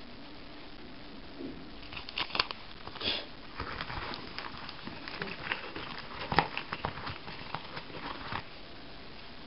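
Packaging crinkling and rustling as it is handled, with scattered light clicks and taps of small items against a table. The rustling starts about two seconds in, and the sharpest tap comes a little past the middle.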